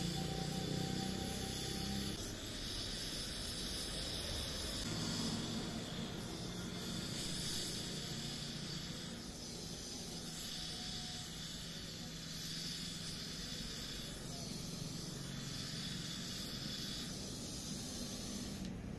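Gas welding torch flame hissing steadily while aluminium is welded with a filler rod.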